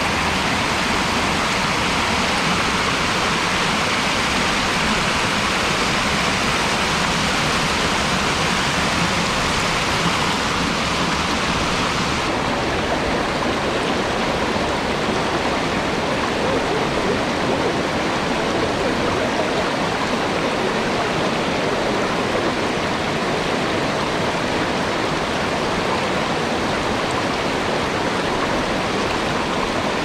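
Mountain stream water rushing over a rock shelf and weir: a steady, loud rush of flowing water. About twelve seconds in it turns a little duller, losing some of its hiss.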